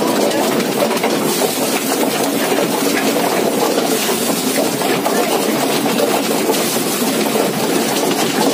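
Drum-type chicken plucker running steadily, its spinning base plate tumbling a whole chicken against the drum's rubber plucking fingers.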